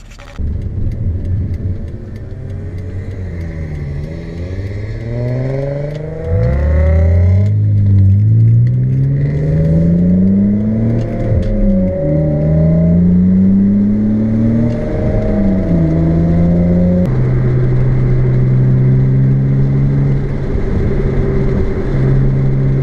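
Car engine pulling away and accelerating through the gears, its pitch climbing and then dropping at each upshift, then holding steady at cruising speed for the last several seconds.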